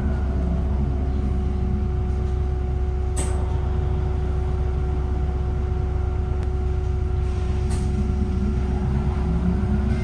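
VDL Citea SLFA-180 hybrid bus giving off a steady whining tone, which the uploader calls a weird battery sound, over a low rumble. Two short clicks come about three seconds in and near eight seconds in.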